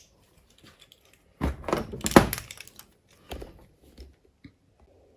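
A few dull thunks and knocks, a cluster of them about one and a half to two and a half seconds in with the loudest near the end of it, then a single knock a second later and a couple of faint taps.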